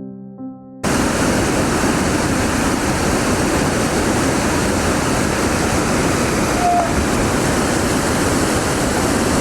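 Waterfall cascade rushing, a loud, steady roar of falling water that cuts in abruptly just under a second in, after a few soft notes of ambient music.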